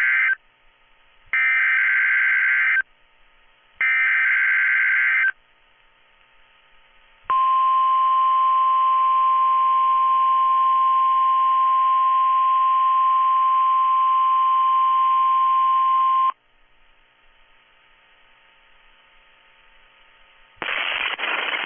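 NOAA Weather Radio test signal: the end of one Specific Area Message Encoding (SAME) data burst, then two more, each a harsh screech about a second and a half long. After a short pause comes the 1050 Hz warning alarm tone, a single steady tone held for about nine seconds that cuts off suddenly.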